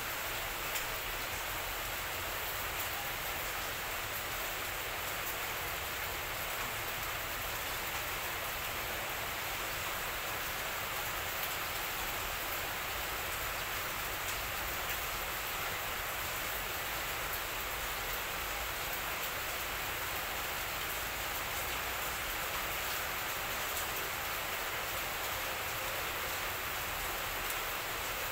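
A steady, even rushing hiss with no distinct sounds in it; the cats make no sound.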